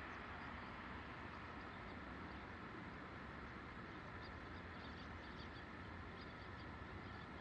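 Faint steady outdoor background noise, with scattered faint, short, high chirps throughout.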